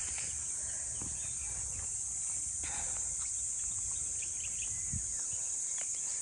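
A steady, high-pitched chorus of insects droning without a break, with a few faint chirps about four seconds in.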